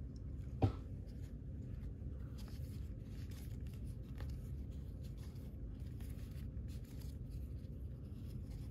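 Baseball cards being slid one by one through a hand-held stack, a faint scraping of card stock, with one sharper click a little over half a second in.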